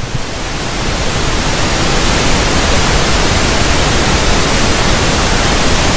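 Loud television static: an even hissing rush of white noise that swells in over the first second or so and then holds steady.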